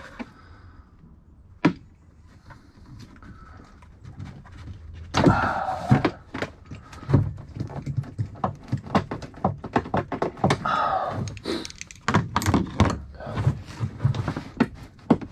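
Handling noise from disconnecting a fitting under a car's front hood: irregular clicks and knocks of plastic and metal parts. There are two short scraping or rustling stretches, one near the middle and one about two-thirds through, and the knocks come thicker near the end.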